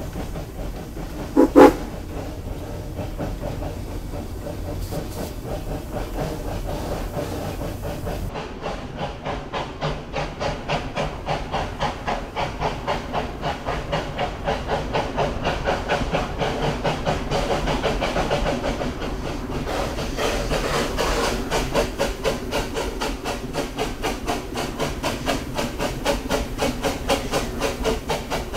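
30-inch-gauge steam locomotive No. 119, built by Crown Metal, running along the line, its exhaust chuffing in a fast, even rhythm over a hiss of steam. A short toot of its steam whistle comes about a second and a half in.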